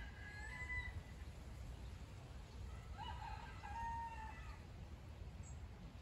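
A rooster crowing: the tail of one crow just after the start, then a full cock-a-doodle-doo about three seconds in, lasting about a second and a half.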